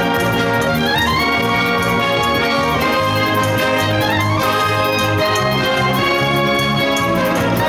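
School wind band playing a Eurobeat medley live: woodwinds, saxophones and brass over a drum-kit beat and a pulsing bass line. Two quick rising runs sweep upward, about a second in and again about four seconds in.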